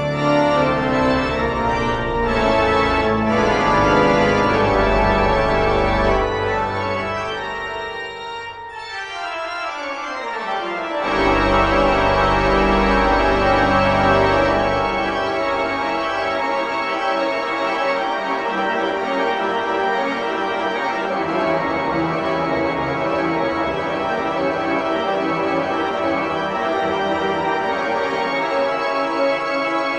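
Background organ music: sustained chords over a deep bass, with a falling passage about nine seconds in and fuller chords from about eleven seconds on.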